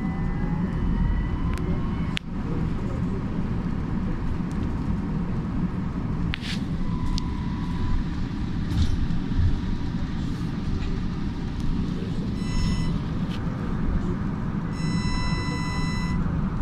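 Steady low rumble inside a moving trolleybus, with the whine of its electric drive rising in pitch over the first couple of seconds as it picks up speed.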